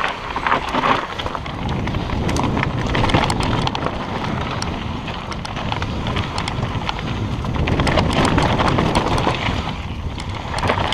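Mountain bike descending a dry, stony dirt trail: tyres crunching over loose rock and the bike clattering over bumps, with wind rumbling on the microphone.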